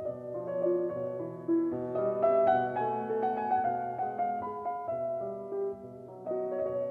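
Background piano music: a slow melody over held lower notes.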